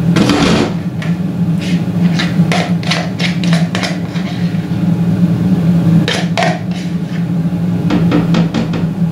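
Short knocks and scrapes of a utensil against ceramic bowls as a thick dip is scraped out of a mixing bowl into a serving bowl, in several runs: most in the first few seconds, again around six seconds and near the end. A steady low hum runs underneath.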